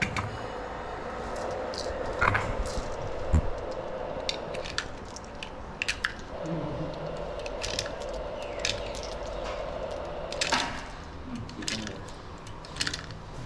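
Cartridges being pressed one at a time into a 9mm pistol magazine: a series of small, irregularly spaced metallic clicks.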